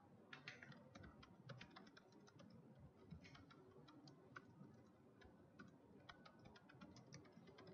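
Faint computer keyboard typing: quick, irregular key clicks, including backspacing to fix a typo.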